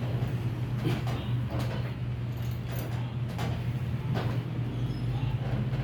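A steady low hum, with scattered light clicks and rustles of hands working on a person during a massage.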